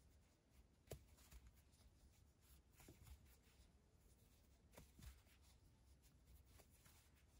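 Near silence: faint, soft rustling of chenille loop yarn being worked through by hand, with a few light ticks about a second in, around three seconds and near five seconds.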